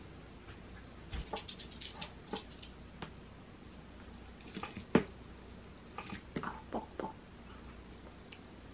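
Scattered light clicks and taps of a metal fork and chopsticks picking pasta salad out of a wooden bowl, the sharpest tap about five seconds in and a quick cluster a second or so later.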